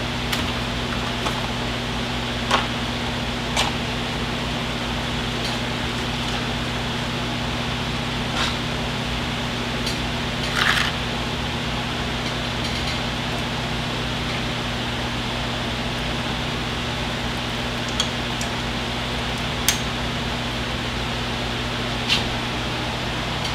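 A steady electric hum and hiss, like a fan running in a small room. About eight light clicks and a brief rustle sound over it as hands handle small items at a workbench.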